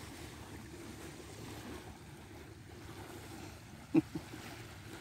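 Faint seaside ambience: calm bay water lapping gently at the beach, with light wind on the microphone. About four seconds in comes a brief double sound, each part falling in pitch.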